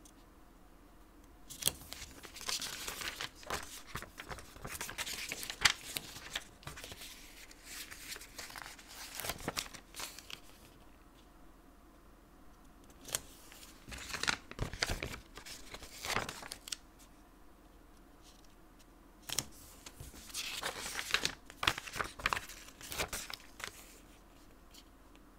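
Washi tape being peeled, torn off and pressed onto notebook paper, with paper rustling: crinkly tearing and small clicks in three bouts, with quiet gaps between.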